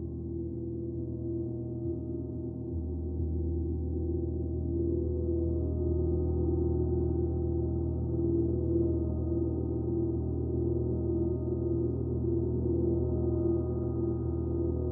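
A gong's deep, sustained hum that swells louder about three seconds in, with a slow pulsing wobble in its ring.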